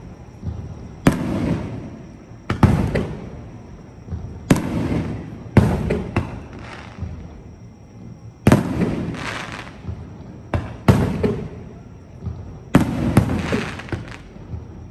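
Aerial fireworks shells bursting one after another: about ten sharp booms, some close together in pairs, each trailing off in a rumble for a second or so.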